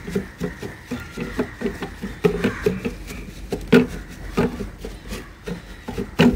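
Crumpled tissue paper rubbed and dabbed across a laptop motherboard, an irregular run of quick scuffs and pats as thinner is wiped off the board.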